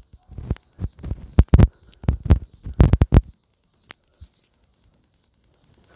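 Whiteboard eraser scrubbing across a whiteboard in quick, irregular strokes that knock and rub against the board for about three seconds, then stop.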